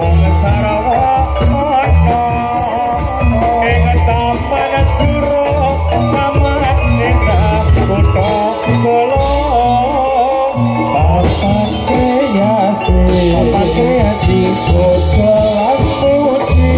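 Live jathilan (kuda lumping) accompaniment music: a Javanese percussion ensemble with heavy drum beats under a continuous wavering melody line.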